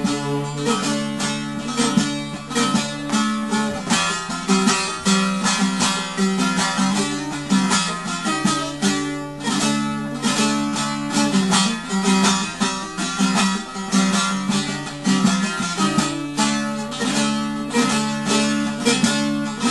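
Bağlama (Turkish long-necked saz) played solo: a quick plucked melody over a steady low drone, with no singing.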